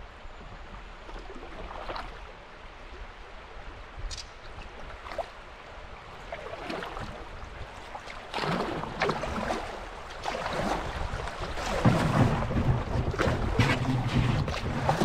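Water splashing and knocking around a kayak on the river, quiet with a few scattered knocks at first, then louder and busier from about halfway in.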